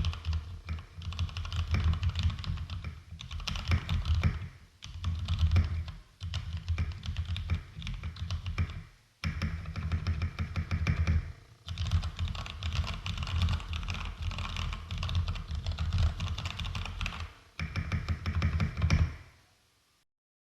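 Fast typing on an IKBC W210 mechanical keyboard with Cherry MX Brown switches, lubed with Tribosys 3203 and filmed, in a case and PCB damped with foam: a dense run of low, deep key clacks in bursts of a few seconds with short pauses. The typing stops about nineteen seconds in.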